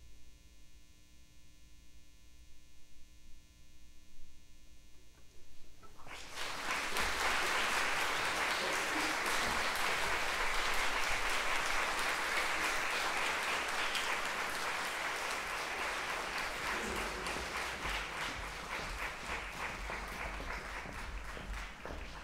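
A hush of about six seconds, then audience applause breaks out and continues steadily.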